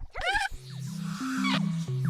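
A short, high, pitch-bending voice-like squeal, then playful music with a bass line stepping between low notes and a falling glide about a second and a half in.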